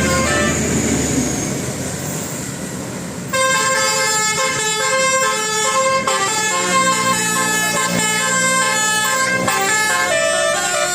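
Engine and road noise, then about three seconds in a telolet 'basuri' musical bus horn starts playing a melody: several horn tones sounding together and stepping from note to note.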